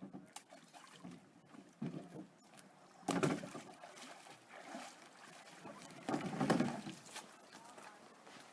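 Water splashing and sloshing around a canoe in several separate bursts, the loudest about three seconds in and another about six seconds in.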